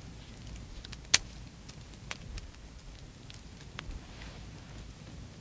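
Campfire crackling, with scattered sharp pops from the burning wood, the loudest about a second in.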